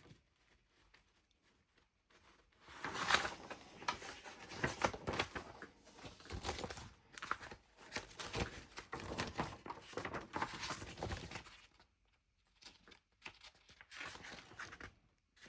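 Paper rustling as the pages of printed documents are handled and turned, in irregular rustles starting about two and a half seconds in, with a brief pause before a few more near the end.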